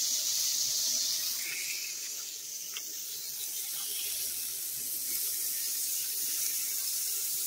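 Steak and pork sizzling in their fat on a hot porcelain-coated griddle of a Coleman 3 in 1 grill: a steady high hiss.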